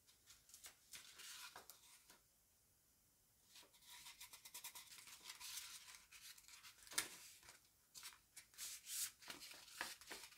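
Faint rustling and crinkling of a sheet of printed paper as it is folded and pressed around a piece of foam board, with a short lull and a single sharp click about two-thirds of the way through.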